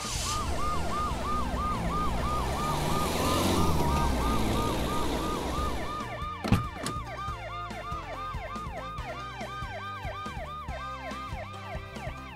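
Ambulance-style siren sound effect: a fast warbling tone that rises and falls about four times a second. In the first half it sits over a rushing noise that swells and fades. A single sharp click comes about halfway through.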